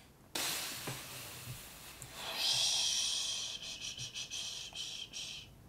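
A person breathing out twice near the microphone: a short breath, then a longer one of about three seconds that breaks up near its end.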